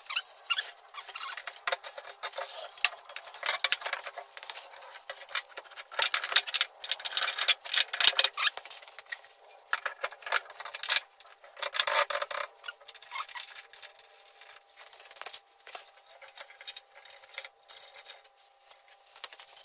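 Irregular metallic scraping, rubbing and knocking as a Suzuki Carry rear axle is shifted and lifted into place under the truck, louder around the middle of the stretch; the sound is thin, with no low end.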